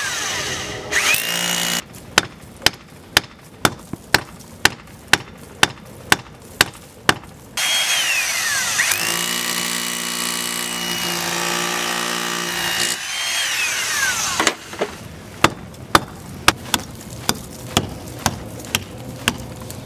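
Rotary hammer drill boring into a cinder-block wall, its motor whine dipping and rising in pitch, alternating twice with a run of regular hand-hammer strikes on the block, about two and a half a second.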